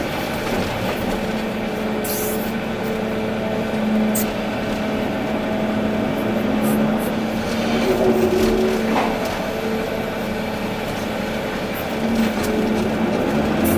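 Volvo EC380D excavator's diesel engine and hydraulics running steadily under working load, their pitch dipping and rising now and then.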